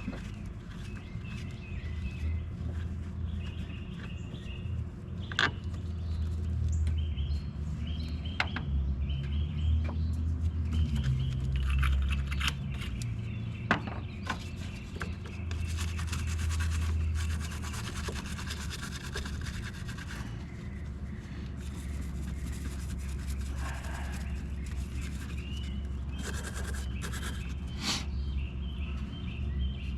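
Scraping, scrubbing and sharp taps on a corroded battery terminal clamp as it is worked loose from the post, with a few distinct clicks and a longer stretch of scraping. Birds chirp in the background.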